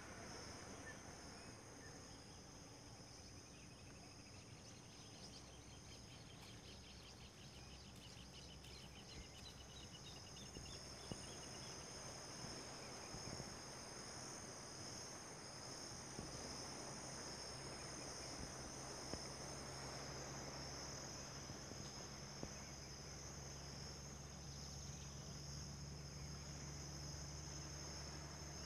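Faint, steady high-pitched trilling of insects. A low steady hum comes in about halfway through.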